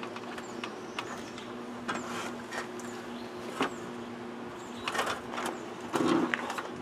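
Aluminium extension ladder and other gear knocking and rattling in scattered knocks while being handled, the loudest cluster about five to six seconds in as the ladder is shifted, over a steady low hum.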